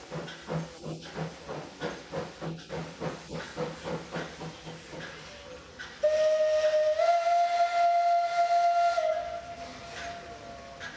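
Steam locomotive whistle blowing one long blast of about three seconds, stepping up slightly in pitch partway through, then trailing off quieter. Before it, steam puffs and hisses in an even rhythm of about three beats a second.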